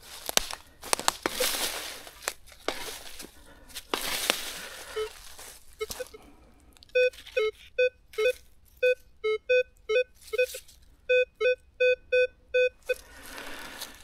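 A shovel crunching and scraping into leaf litter and soil, then, from about five seconds in, a metal detector giving a run of short beeps, about two a second, as its coil is passed over the hole: the detector signalling a buried target.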